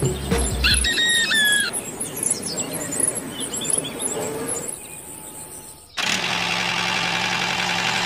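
Small birds chirping rapidly and high-pitched, with a longer squealing call about a second in. About six seconds in, a steady whirring noise starts abruptly.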